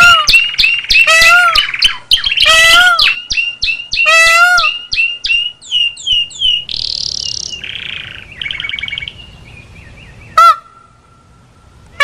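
Myiozetetes flycatcher (social-flycatcher type) calling: loud, harsh, arched calls repeated every second or so for about the first five seconds, then quicker, softer chirps and chatter. One more loud call comes near the end.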